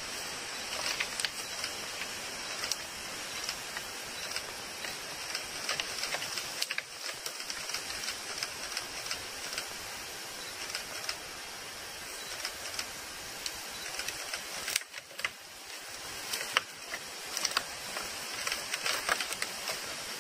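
Whitetail buck rubbing its velvet-stripping antlers against a tree trunk: irregular scraping and knocking of antler on bark over a steady hiss, with a run of sharper knocks about fifteen seconds in.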